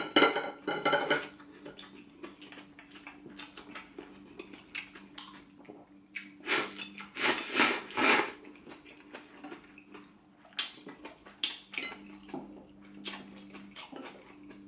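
Close-up eating sounds: chopsticks clicking and scraping against ceramic plates and bowls, with louder bursts of noodle slurping at the start and again about seven seconds in. A faint steady hum runs underneath.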